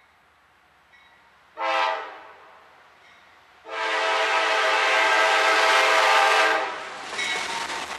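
CSX freight locomotive's multi-chime air horn blowing a short blast about one and a half seconds in, then a long blast from about three and a half to six and a half seconds: the closing short and long of the grade-crossing horn signal. The horn cuts off as the locomotive passes, leaving the rumble and rail noise of the train going by.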